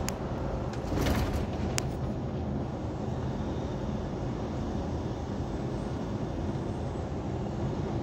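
Steady engine and road noise heard inside a semi-truck's cab cruising on the interstate, with a few brief clicks or rattles between one and two seconds in.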